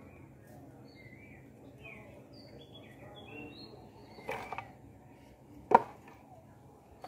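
Birds chirping in the background while wooden hive frames and wire are handled, with a few light knocks past the middle and then one sharp knock of wood on wood as a wire-strung wooden frame is set down.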